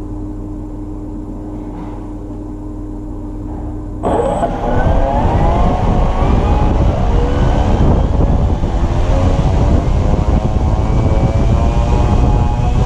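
Brushless drone motor and propeller on a test stand running under a LiPo battery: a steady low hum at low throttle, then about four seconds in it gets suddenly louder and its tone climbs slowly in pitch as the throttle is raised and the current draw rises.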